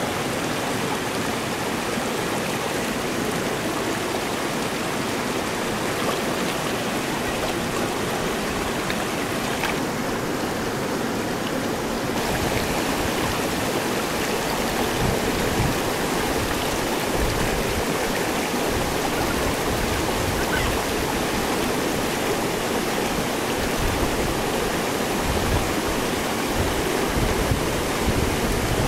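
Shallow rocky river rushing steadily over stones, with irregular low rumbles in the second half.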